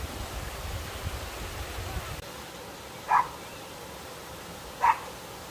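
A dog barking: two short single barks about two seconds apart.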